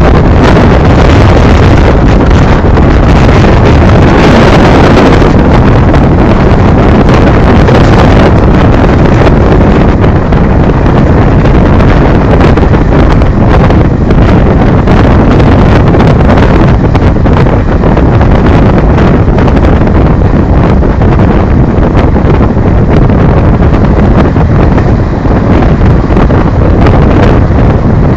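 Loud, steady wind blasting the microphone, mixed with the rumble of a train running at speed on the rails.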